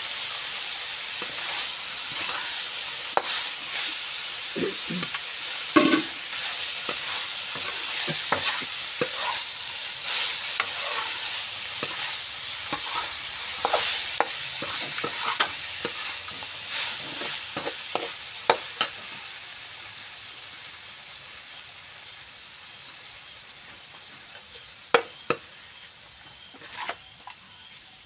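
Chicken and leafy greens stir-frying in a metal wok: a steady sizzle with a spatula scraping and knocking against the pan. The sizzle gradually dies down in the last third, with two sharp knocks near the end.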